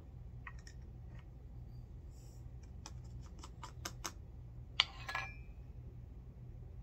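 Light clicks and taps of brass cartridge cases and a powder funnel handled at a loading block: a quick run of small clicks about three to four seconds in, then one sharper click and a brief rattle about five seconds in. A steady low hum runs underneath.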